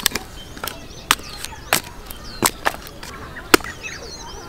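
Axe chopping firewood: about seven sharp, irregularly spaced wooden strikes.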